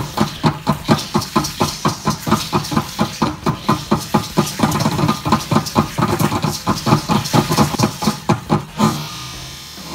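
Drum beating a fast, even rhythm of about four strokes a second for Aztec danza dancers, with a steady hiss above the beats; the drumming stops near the end.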